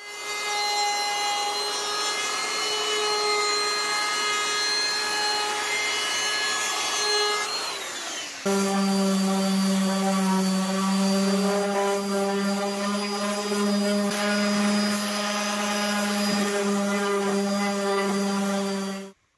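Handheld router running steadily for about eight seconds, then the sound switches abruptly to a random orbital sander running steadily against the wood, with a strong low hum, until it stops just before the end.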